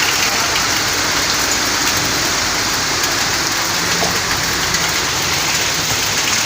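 Heavy rain beating on a car, a steady dense patter with many small sharp ticks.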